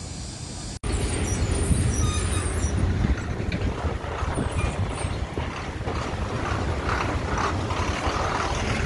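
Ashok Leyland bus driving past close by: diesel engine running with tyre and road noise, starting abruptly about a second in.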